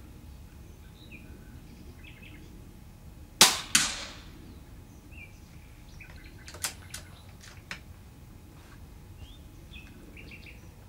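A single rifle shot about three and a half seconds in, followed a third of a second later by a second sharp crack that trails off. Two much fainter sharp clicks come a few seconds later, over faint bird chirps.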